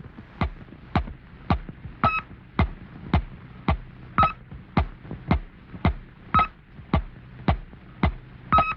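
Electronic space-signal sound effect for a cartoon's opening: a steady train of sharp clicks, a little under two a second, with a short high beep on every fourth click, over a low hum.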